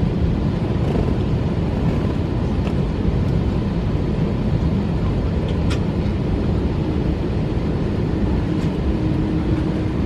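Steady low rumble inside an Airbus A321's passenger cabin on the ground before take-off, with a faint tick about halfway through.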